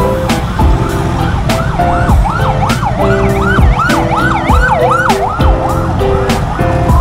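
Background music with a steady beat, over which a siren-like wail rises and falls about three times a second from about a second and a half in until near the end.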